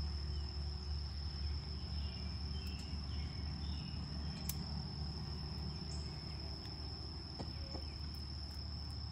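Steady insect chorus, crickets or similar, holding one high unbroken tone over a low steady rumble, with a single sharp click about four and a half seconds in.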